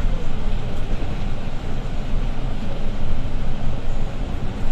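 Inside a Setra S415LE business low-entry bus driving along a country road: the steady hum of the diesel engine and drivetrain mixed with tyre and road noise, deep and even.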